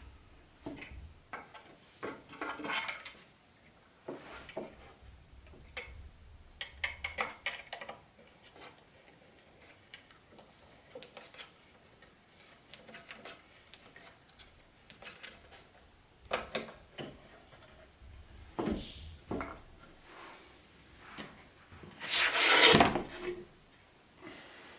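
Wooden doll-house parts and small metal fasteners handled during assembly: scattered clicks, knocks and rubbing, with a louder scraping clatter near the end.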